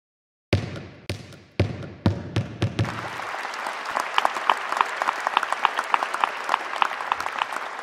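A handful of deep, sharp percussive hits, each dying away, then audience clapping that starts about three seconds in and keeps going.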